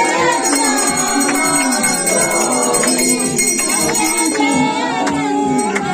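Bells ringing steadily along with music that carries a shifting melody.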